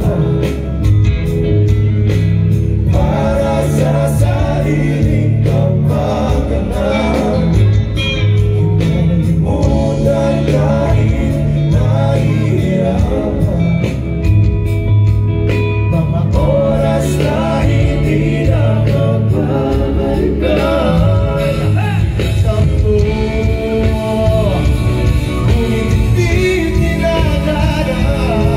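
Live pop-rock band playing a song: electric guitars, keyboard and drums behind a male lead singer, loud and continuous over the concert sound system.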